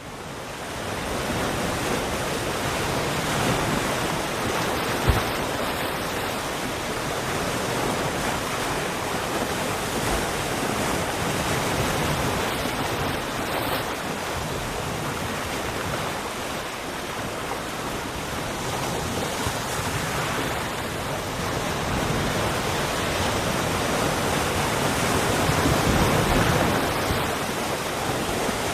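Sea waves breaking and washing ashore, a continuous rushing that swells and eases every several seconds, with one brief low thump about five seconds in.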